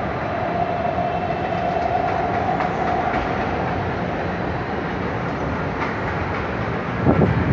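Steady rumble of an underground metro station, with a faint steady whine over the first few seconds and a louder surge near the end.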